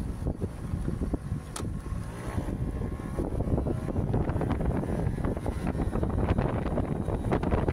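Wind buffeting the microphone of a camera mounted on a small postal scooter while riding, with the scooter's engine running underneath; the engine note glides in pitch about two to three seconds in.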